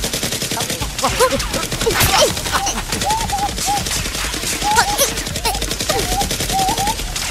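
Rapid gunfire sounds, a continuous stream of many shots a second, going with Nerf blasters being fired, with brief high cries over the top.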